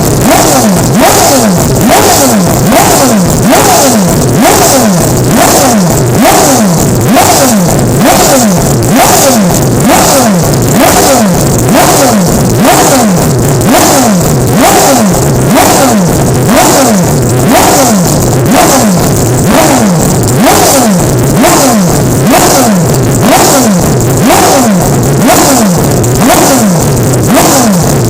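Mazda 767's four-rotor rotary racing engine revving hard, its pitch rising and falling over and over in quick, even cycles, about one and a half a second.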